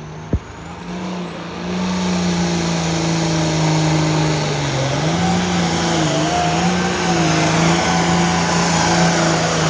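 Diesel engine of a red International Harvester 5488 pulling tractor under full load, dragging the weight sled down the track. It builds over the first two seconds and then runs loud and steady, its pitch wavering slightly. A single sharp knock comes about half a second in.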